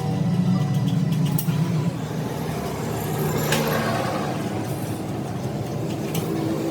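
An engine running steadily, with a few sharp clicks.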